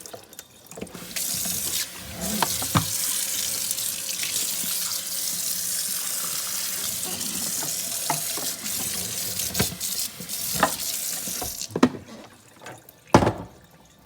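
Water running into a sink for about ten seconds while the carpet cleaner's dirty-water tank is emptied, with a few light knocks. The water stops, and a single sharp knock follows near the end.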